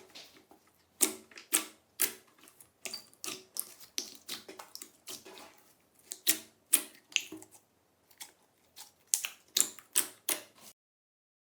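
Slime being worked, giving a run of sharp clicking pops, about two a second, that stops abruptly near the end.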